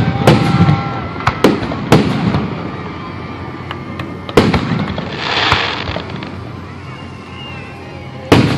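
Aerial firework shells bursting overhead: about five sharp bangs, with a crackling hiss midway.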